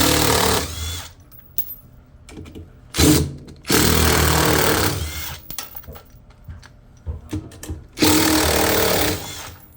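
Power driver with a 10 mm socket spinning out the bolts that hold a front-load washer's ballast weight, in three runs of a second or two each: at the start, about three seconds in and about eight seconds in.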